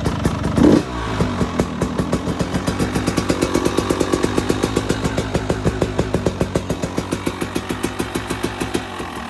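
KTM 300 two-stroke dirt bike engine, given a short blip of the throttle about a second in and then idling with an even popping beat. The stock header is back on and the silencer is freshly repacked, and the exhaust leak at the cylinder flange is cured.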